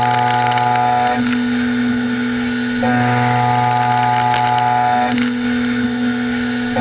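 Sandvik CoroMill Plura HFSM solid-carbide end mill side-milling a metal block in a CNC machining center: a steady pitched cutting whine. Its tone switches back and forth every couple of seconds as the WaveForm toolpath moves the cutter through the cut.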